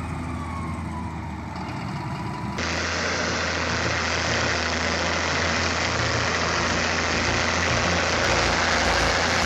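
Heavy machine's diesel engine running, first at a low idle, then about two and a half seconds in switching suddenly to a much louder, steady full-throttle running.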